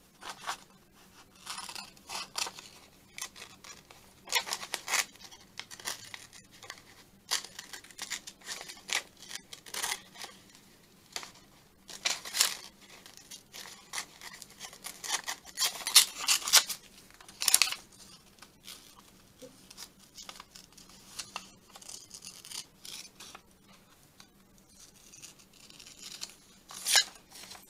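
Small scissors snipping through a glossy magazine page, rough cuts around a cut-out in irregular runs of snips with short pauses between.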